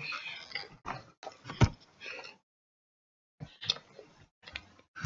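Scattered sharp clicks and ticks mixed with soft rustling, broken by a second of silence in the middle.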